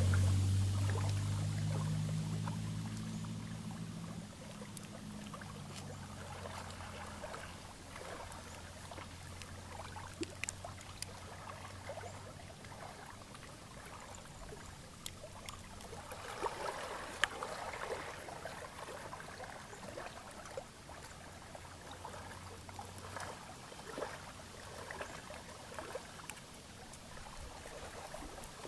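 A motorboat engine hums low and steady, fading over the first few seconds and lingering faintly. Under it, lake water laps gently at the shore, with scattered small clicks and taps as a small bonsai pot and metal tweezers are handled.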